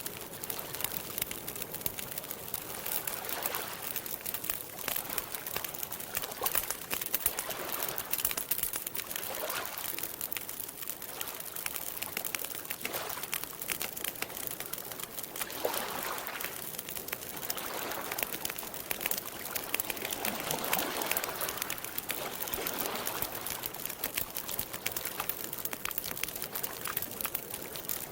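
Campfire crackling steadily with many small pops, over water lapping gently in soft swells every few seconds.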